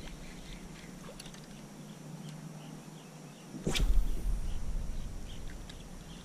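A fishing rod whipping through a cast about two-thirds of the way in: a sudden swish, with line hiss, then a low rumble that fades over about two seconds. Faint chirping of insects or birds comes before it.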